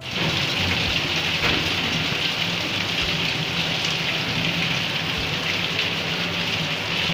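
Steady rain falling, with water streaming and dripping off the roof edge.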